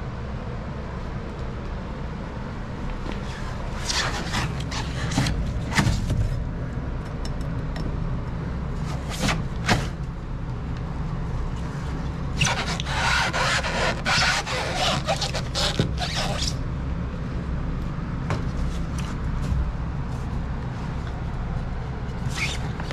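Waterlogged pour-in foam being pried and broken out of a boat's shaft alley with a hand tool: scraping and crunching in bursts about four, nine and thirteen to sixteen seconds in. A steady low hum runs underneath.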